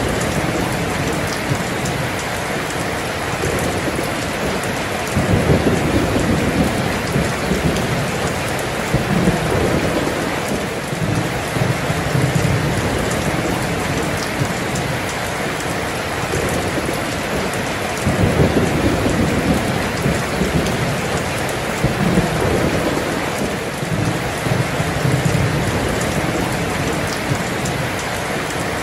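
Heavy rain pouring down in a steady hiss, with low rolling thunder swelling and fading several times underneath, strongest about five seconds in and again past the middle.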